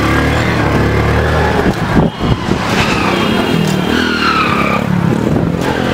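Motorcycle and other vehicle engines running in a crowded, panicked street, with a high wavering cry heard from about three to five seconds in.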